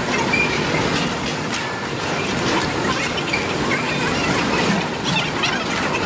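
Freight train of covered hopper cars rolling slowly past, steel wheels rumbling and clattering over the rails, with faint short high squeaks.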